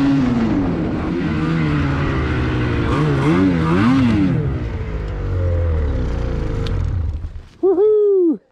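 Snowmobile engine running under way, its pitch rising and falling repeatedly as the throttle is worked, then easing off and dying away near the end. It is followed by a brief loud call that rises and then falls in pitch.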